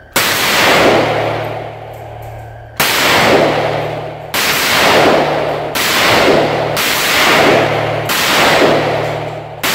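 Sarsılmaz SAR 308, an AK-47-pattern rifle in 7.62×39 mm, fired as seven single shots one to two and a half seconds apart, each with a long echoing decay.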